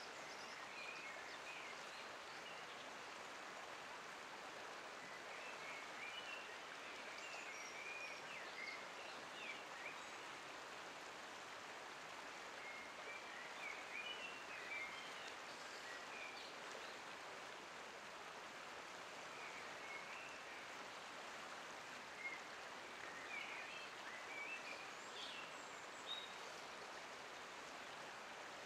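Faint steady rush of flowing river water, with small birds chirping here and there.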